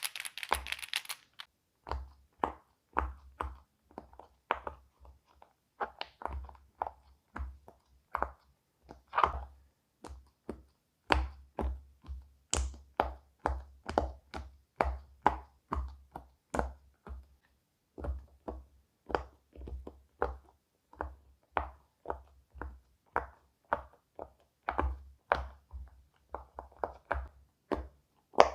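Silicone pop-it fidget toy bubbles being pressed down one after another, each giving a short, soft pop, about one or two a second at an uneven pace.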